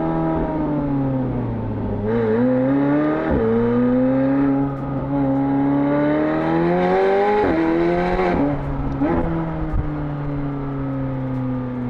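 McLaren 765LT Spider's twin-turbo V8, breathing through IPE downpipes, pulling hard with the roof down. The engine note climbs in pitch and drops sharply at each upshift, then settles into a steady run that slowly eases down near the end.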